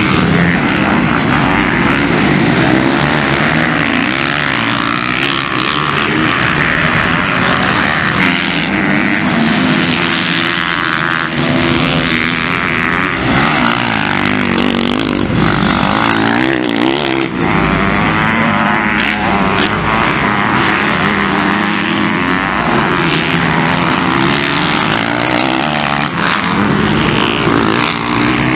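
MX1-class motocross bikes racing on a dirt track, their engines revving up and falling back again and again through turns and jumps.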